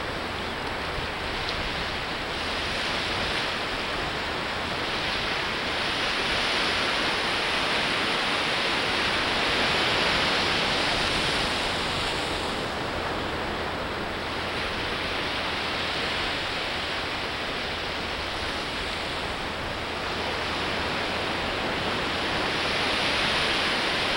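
Ocean surf breaking and washing up the shore: a steady hiss that swells and ebbs every few seconds as each wave breaks.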